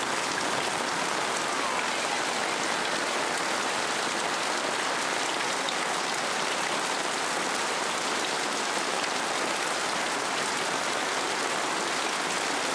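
Heavy monsoon rain falling steadily onto water tubs, puddles and a flooded lane, an even hiss that does not let up.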